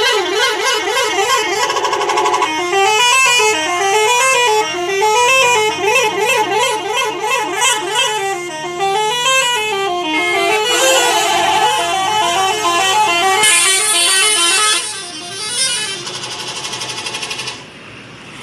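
Indonesian bus "telolet" horn, a multi-tone musical horn, playing loud melodies. It starts with a fast pulsing chord, then runs of notes going up and down, then steadier tones, and gets quieter in the last few seconds.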